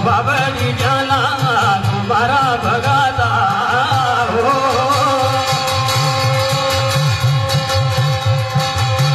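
Kumaoni jagar devotional folk song: a man singing over a steady beat on a hudka hourglass drum, with steady held instrumental tones beneath. The singing stops about four and a half seconds in while the drum beat and held tones carry on.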